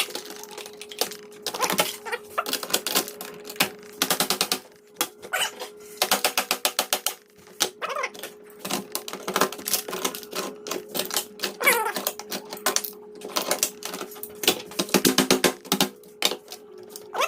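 Hand tools working on the metal parts of a server being dismantled: runs of rapid, evenly spaced metallic clicks, with a faint steady hum underneath.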